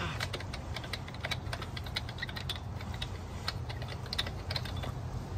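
Rapid, irregular small clicks and taps of hands unscrewing and handling a JLT oil catch can, over a steady low hum.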